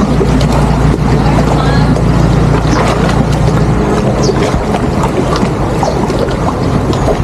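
Motorboat engine running with a steady low hum that eases off about four seconds in.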